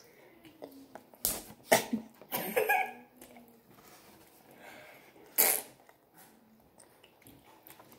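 Chewing and mouth noises from someone eating a cheeseburger close to the microphone. There are sharp smacking sounds about a second in, just under two seconds in and around five and a half seconds, and a short voiced sound in between.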